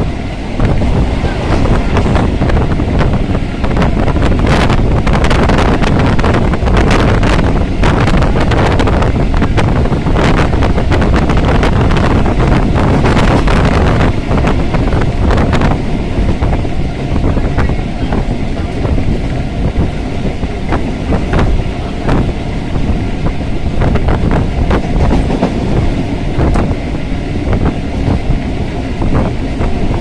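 Electric suburban train running at speed, heard from inside the carriage: a steady loud rumble of wheels on the rails with frequent rattles and clacks, busiest in the first half, and wind buffeting the microphone at the open window.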